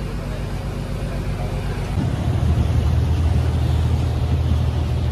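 A boat engine running with a steady low hum; about two seconds in the sound cuts to a louder, deeper engine drone with a steady rush over it, as the boat runs underway on open water.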